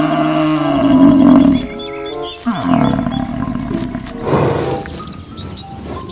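Water buffalo lowing: a few long, low, loud calls, the second sliding down in pitch at its start, over light background music.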